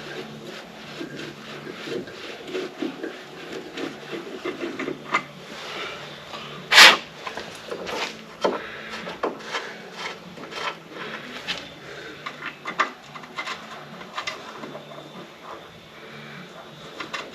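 Hand tap being worked by hand into a bolt hole in the Ford F350's body metal to re-cut the threads: irregular metal scraping with small clicks, and one loud clank about seven seconds in.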